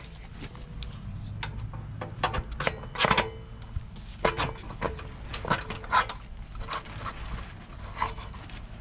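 Metal scraping and clinking as a minibike's rear axle is worked by hand into the wheel hub and frame, with irregular knocks, the loudest about three and six seconds in.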